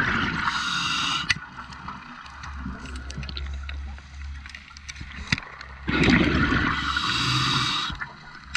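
Scuba diver breathing through a regulator underwater: two loud stretches of hissing and bubbling gurgle, one at the start lasting about a second and one about six seconds in lasting about two seconds, with a few sharp clicks between.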